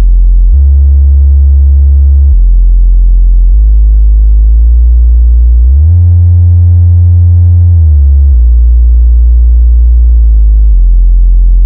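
Subwoofer test tone from a sound-system check: a loud, low, steady tone that steps between a few bass pitches, glides up to its highest about six seconds in, holds there, then glides and steps back down to its lowest near the end.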